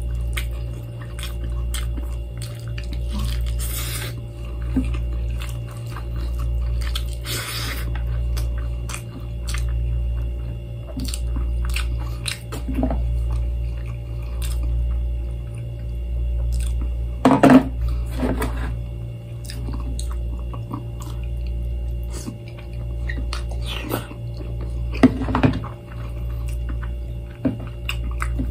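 Close-up eating sounds: chewing and wet squishing as balut and rice are eaten by hand, with scattered small clicks and a few short, louder crackles. A low hum swells and fades about every two seconds underneath.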